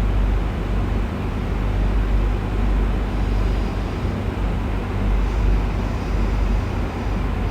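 Cat snoring: a loud, steady low rumble with gentle swells in loudness.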